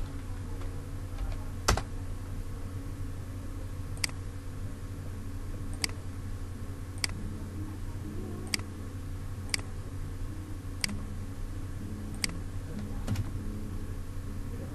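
Sharp, single clicks of a computer mouse and keyboard, about nine of them spaced a second or so apart, the first the loudest, over a steady low hum.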